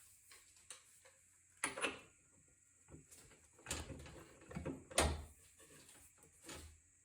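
A series of separate knocks and clunks, the loudest about five seconds in, from parts and tools being handled while the washing machine's drum shaft assembly is being worked on.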